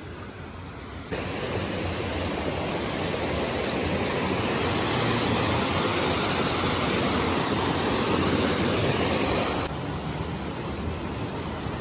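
Steady rush of a rocky mountain stream cascading over boulders. It jumps louder about a second in and drops back to a softer rush near the end.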